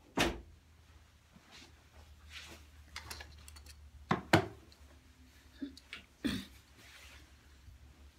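Handling noise from a phone camera being gripped and moved: a few sharp knocks and thumps, the loudest just after the start and about four seconds in, with smaller clicks and fabric rubbing between them.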